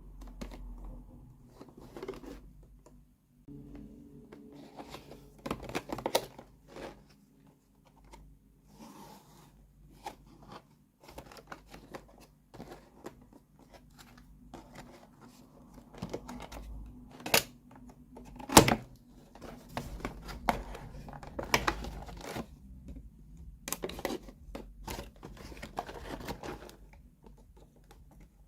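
Toy packaging and small plastic miniature kitchen pieces being handled and unpacked: irregular rustling, tearing and crinkling with many light taps and clicks. The sharpest click comes about two-thirds of the way through.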